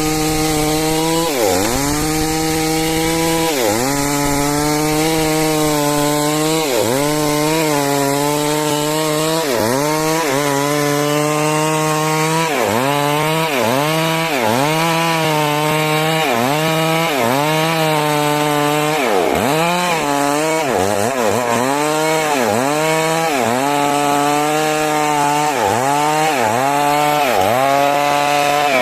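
Chainsaw cutting lengthwise through timber to make 6 × 6 cm rafters. The engine runs at high revs, its pitch dipping and recovering every second or two as it works through the cut, and it falls away near the end.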